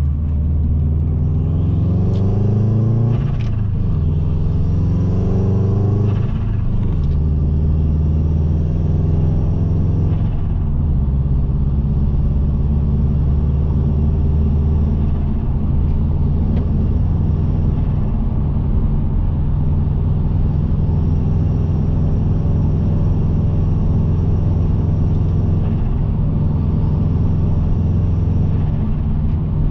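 Subaru Impreza WRX's turbocharged EJ20 flat-four under acceleration: the revs climb and drop back twice in the first seven seconds, with a gear change at each drop, climb and drop once more about ten seconds in, then hold steady.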